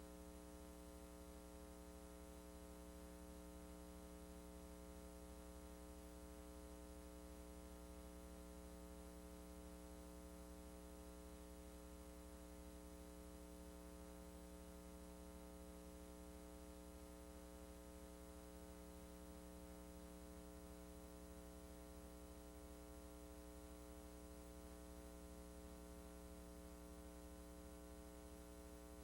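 Near silence: a faint, steady electrical mains hum with its overtones, the noise floor of a VHS transfer that carried no recorded audio.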